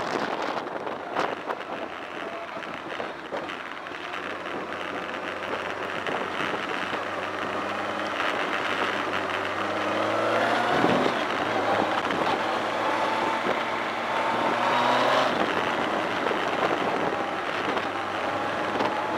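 BMW K1200R Sport's inline-four engine on the move, rising in pitch several times as it accelerates, under a steady wash of wind and rain noise. A short whoosh comes about halfway through as an oncoming car passes.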